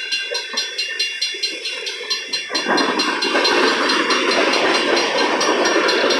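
Empty coal hopper cars of a long freight train rolling past, wheels clicking over the rail in a fast, even rhythm; about two and a half seconds in, a louder rushing noise takes over.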